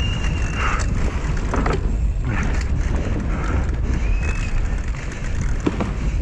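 Downhill mountain bike ridden fast over rough grass: wind blasting the helmet camera's microphone and a steady tyre rumble, with several sharp knocks and rattles as the bike hits bumps. Two brief high whistling tones, one near the start and one about four seconds in.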